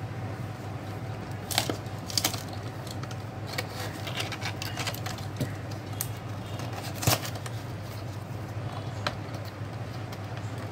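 Cardboard packaging being handled and pulled apart, giving scattered sharp clicks and crackles of paperboard over a steady low hum.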